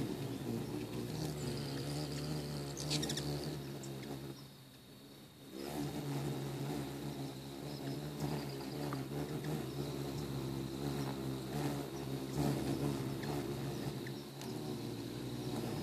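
Wings of many ruby-throated hummingbirds humming as they hover and dart around a nectar feeder, a steady buzz that drops away briefly for about a second roughly four and a half seconds in.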